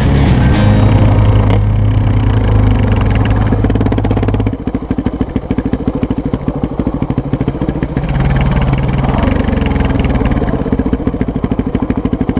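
Yamaha WR400F dirt bike's four-stroke single-cylinder engine running under throttle, then dropping about four and a half seconds in to a low, rapid chugging at low revs, picking up slightly a few seconds later.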